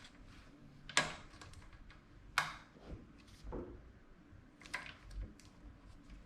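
Sharp creaks and clicks from around a road bike's handlebar and stem, a few separate ones with the loudest about one, two and a half and five seconds in: the creaking ('mishi-mishi') noise that the handlebar area is making.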